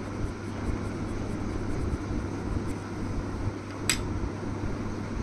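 Steady low background hum with a single sharp, briefly ringing click about four seconds in, as a pencil is set down on a glass tabletop.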